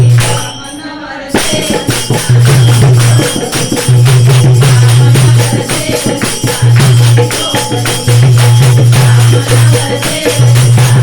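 Bhajan music from a women's devotional singing group, driven by fast, steady rhythmic hand percussion. The music dips briefly about a second in, then carries on.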